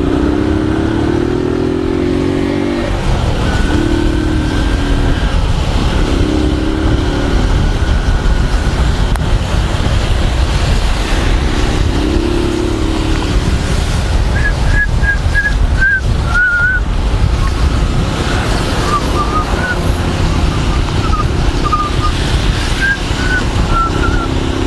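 150 cc single-cylinder motorcycle engine riding through traffic, revving up several times as it pulls away and shifts, over heavy wind and rain-soaked road noise on a helmet microphone. Short high chirps sound in the second half.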